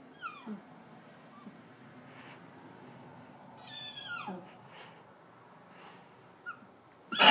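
A few faint animal cries, each falling in pitch: short ones near the start and a longer, stronger one about four seconds in.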